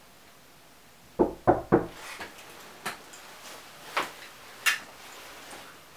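Three quick knocks on a door, followed by a few spaced footsteps.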